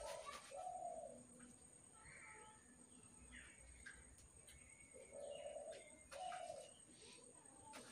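Faint bird calls: short, low, flat notes in pairs, one pair at the start and another about five seconds in, with a few higher chirps in between.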